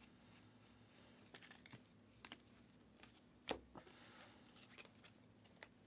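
Faint clicks and rustles of a stack of trading cards being slid and flipped through by hand, with one clearer click about three and a half seconds in.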